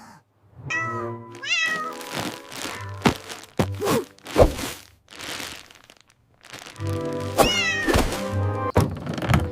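A cat meowing in pitch-bending calls, once near the start and again near the end, over background music, with several sharp thuds in the middle.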